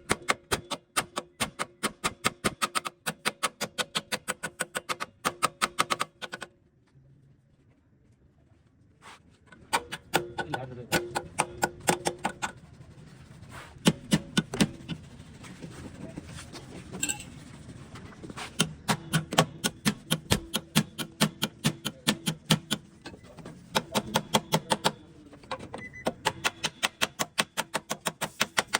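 Rapid light hammer taps on car body sheet metal, several a second, in long runs with a pause of about three seconds after the first run: panel beating to work out accident dents.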